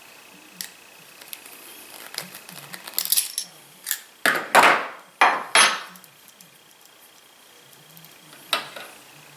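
Small metal hardware clinking and knocking as a threaded stud, nut and wing nut are handled and taken apart, with the clamps being undone. A series of sharp clicks and clanks, busiest around the middle, with one more near the end.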